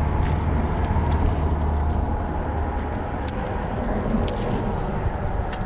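Road traffic on a highway bridge: a steady low rumble that eases about three seconds in, with scattered small clicks.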